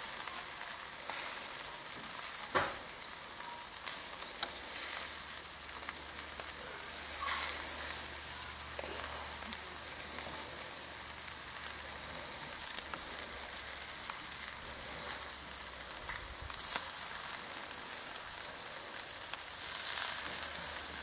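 Meat skewers and bacon-wrapped patties sizzling on a hot charcoal grill: a steady hissing sizzle with a few sharp crackles.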